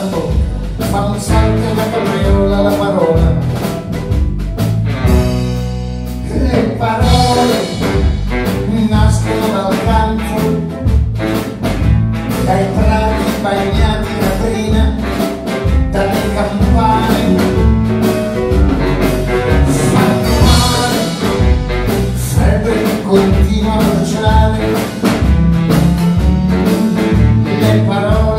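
Live small band playing a jazzy song with piano and a steady rhythm section beat, with a man singing into a handheld microphone over it.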